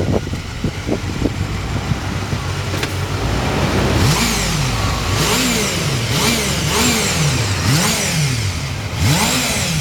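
Honda Jade 250cc inline-four motorcycle engine running, then from about four seconds in revved in quick repeated throttle blips, each rising and falling, about one every 0.7 seconds. The engine is shown as one with few abnormal noises.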